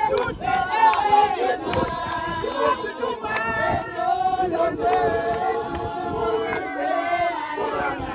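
A crowd of women singing and chanting together in a lively celebratory song, several voices overlapping, with occasional shouts.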